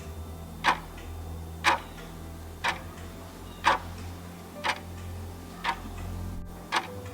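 Clock insert of a handmade pocket watch ticking steadily, one sharp tick a second, over a low steady hum.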